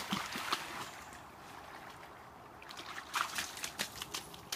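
Water splashing as dogs wade and swim in a shallow river, over the river's trickle. The sharp splashes come in the first second and again near the end, with a quieter stretch of running water between.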